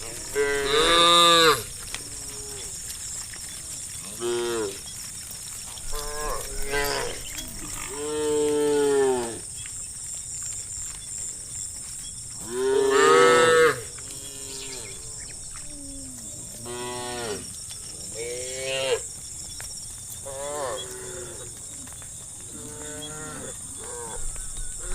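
Cows mooing again and again, about a dozen separate calls of different pitch and length. The longest and loudest come about a second in and around thirteen seconds in.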